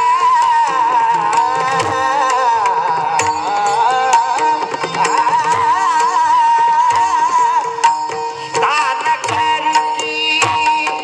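Marathi devotional bhajan music: a wavering high melody over a steady held drone, with hand-drum strokes keeping the rhythm.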